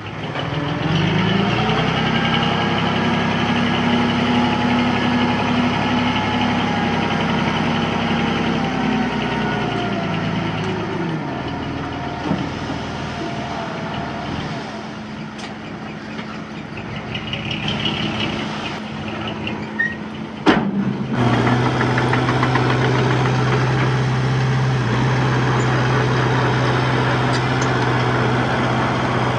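Diesel engine of heavy earthmoving machinery running under load. It revs up about a second in and eases back down around ten seconds in. A sharp knock comes about twenty seconds in, and after it the engine settles into a steady, lower-pitched run.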